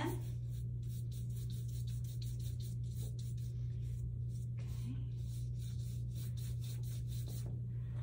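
Paintbrush loaded with watercolor rubbing back and forth across paper in quick, uneven strokes, a soft scratchy brushing, over a steady low hum.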